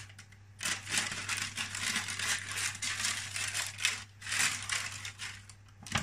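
Brown baking-paper cupcake cases crinkling and rustling as they are handled and pressed into a baking tray, in two stretches, the longer one first.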